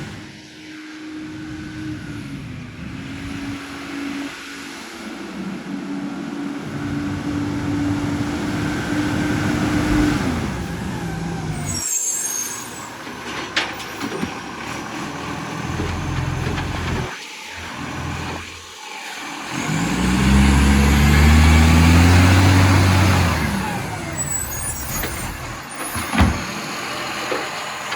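A rubbish truck's engine, which has an exhaust leak, runs steadily and then revs up loudly with rising pitch as it pulls away about two-thirds of the way in. Short air-brake hisses come in between.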